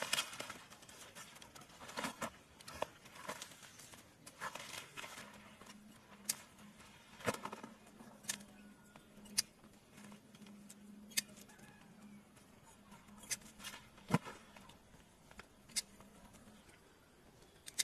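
Spring-loaded pruning shears snipping kumquat twigs, a sharp click every second or two, with rustling of leaves and branches. A faint steady low hum sits underneath through the middle.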